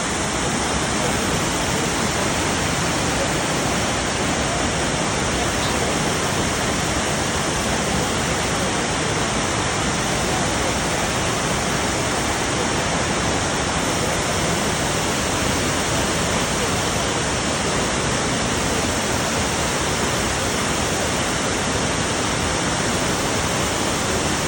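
Shifen Waterfall's large cascade, a steady loud rush of falling water.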